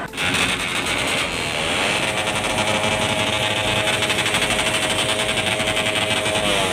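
Small motorcycle engine running, its pitch rising about a second and a half in, holding steady, then dropping near the end.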